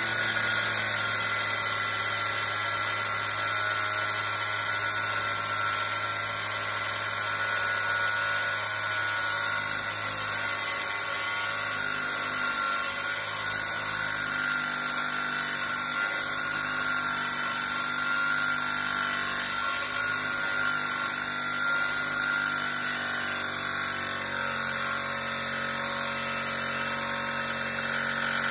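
Angle grinder with a cutting wheel running steadily under load, cutting through the metal casing of a small compressor to open it. It runs without a break.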